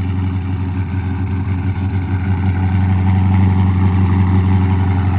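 Dodge Charger's cammed Hemi V8 idling steadily, just started on a new battery.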